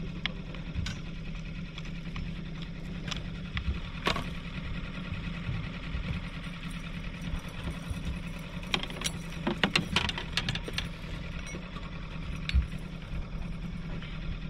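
Boat's outboard motor running steadily at trolling speed, a low even hum. Scattered clicks and knocks sit over it, bunched together about nine to eleven seconds in.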